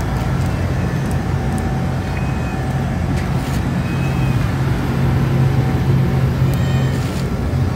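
Steady, loud low mechanical hum, with a few faint short meows from a cat over it.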